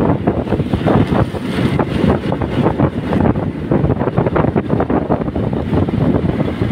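Wind buffeting the microphone of a moving motorcycle, a steady fluttering rush with road and engine noise beneath it.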